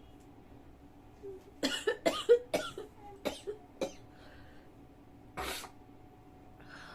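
A woman coughing in a rapid fit of short, harsh coughs starting about a second and a half in, then one longer cough a couple of seconds later, her throat irritated by sniffed red chilli powder.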